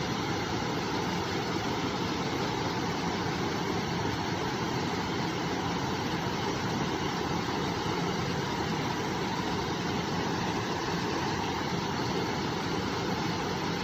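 River water flowing, a steady unbroken rush of noise.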